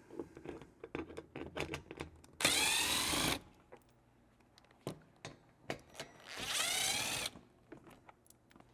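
Power drill-driver with a socket spinning out the two 8mm bolts, one after the other: two bursts of about a second each, the motor's pitch rising as it spins up. Small clicks and knocks of tool and bolt handling fall between them.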